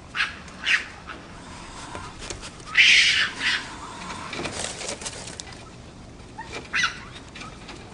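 Meerkats calling: short high squeaks and chirps, with one louder, harsher call about three seconds in.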